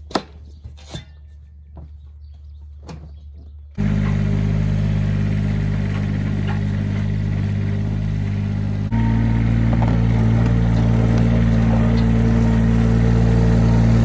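A Bobcat 463 skid steer's diesel engine comes in loud and close about four seconds in and runs steadily. About nine seconds in it steps up to a higher engine speed. Before it comes in there is only a low hum and a few light clicks.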